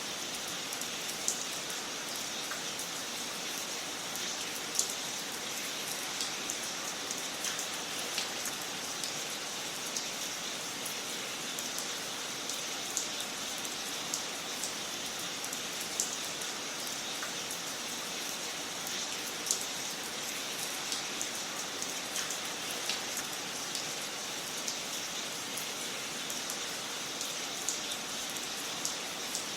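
Wood fire crackling in a fireplace: a steady hiss with frequent small pops and a few louder snaps scattered through, such as about five seconds in and again around sixteen and twenty seconds.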